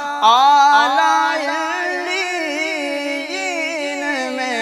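Male devotional singing of an Urdu naat: an ornamented voice that glides and bends over a steady layered vocal hum, with no drums.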